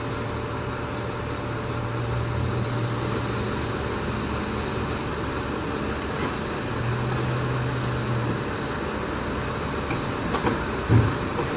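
Diesel engine of a large P&H crawler piling rig running steadily, with a low hum that swells twice, in the first few seconds and again in the middle. A couple of sharp knocks sound near the end.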